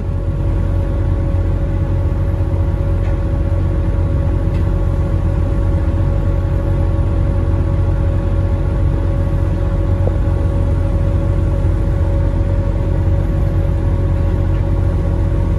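John Deere skidder's diesel engine running steadily at a constant speed, heard from inside its cab as a loud, even drone with a fixed-pitch hum.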